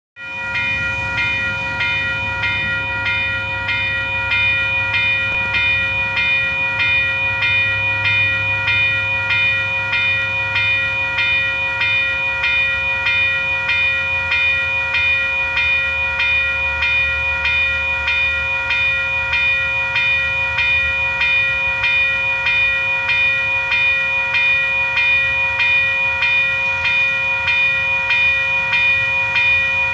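Railway level crossing warning bell ringing steadily at about two strokes a second, signalling an approaching train. A low vehicle rumble runs under it for the first two-thirds, then fades.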